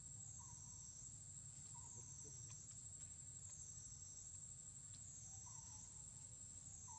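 Faint, steady, high-pitched insect drone whose pitch dips and recovers about every second and a half, with faint short calls repeating at the same pace, over a low rumble.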